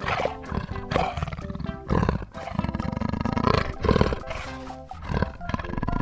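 A big cat growling and snarling in repeated rough bursts about a second apart, over background music.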